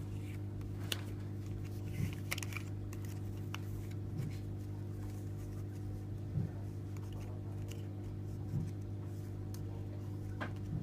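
Large cards being handled and squared: scattered light clicks and rustles, with soft thuds about every two seconds, over a steady low hum.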